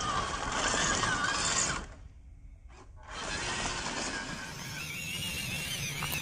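MN99 Defender 1/12 scale RC crawler's electric motor and gearbox whining and rattling as it crawls over rough ground, the whine rising and falling with the throttle. The sound drops away for about a second near the middle, then resumes.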